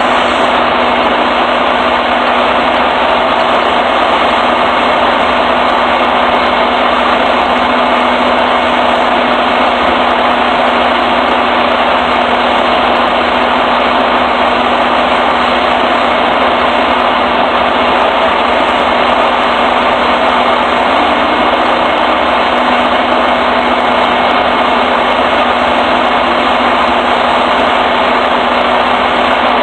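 Truck engine idling steadily, a constant even noise with a steady low hum.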